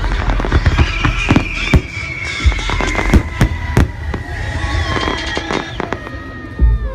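Fireworks display: shells bursting with irregular sharp cracks and bangs over a steady low rumble, with music and long, slowly falling tones running underneath.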